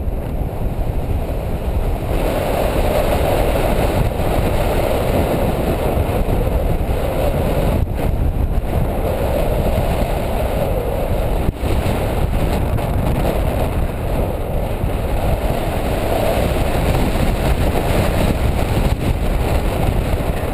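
Airflow buffeting a GoPro microphone in paraglider flight: a loud, steady rush of wind that swells and eases every few seconds.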